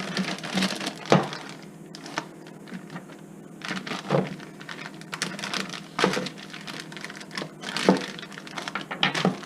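A plastic zip-top bag being handled with a frozen fish fillet inside: scattered crinkles and light knocks, with sharper clicks about a second in, around four seconds in, and around six and eight seconds in.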